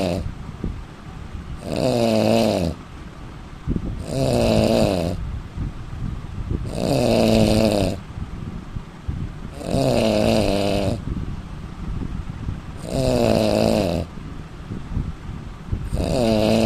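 A man snoring loudly in a slow, regular rhythm: a snore about every three seconds, each lasting about a second, with quieter breathing between them.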